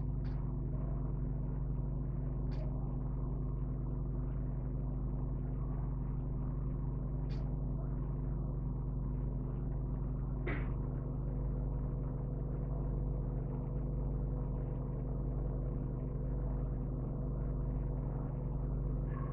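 A steady low background hum, with a few faint short ticks scattered through it, likely the crochet hook and yarn being worked.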